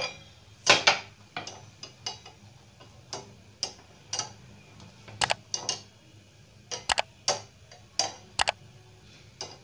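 Irregular sharp clicks and crackles, roughly two a second, from a chapati roasting and puffing on a wire-mesh roti grill over a gas flame.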